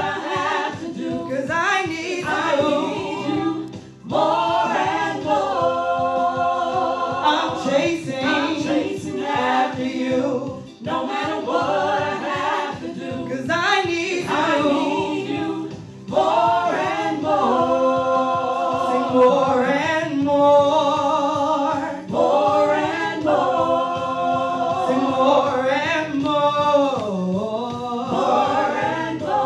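Gospel worship song sung by a group of voices, in long held phrases with short breaks between them.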